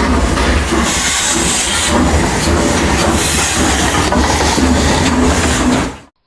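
A train running along the track, a loud dense noise over a steady low rumble, with some hiss. It cuts off abruptly about six seconds in.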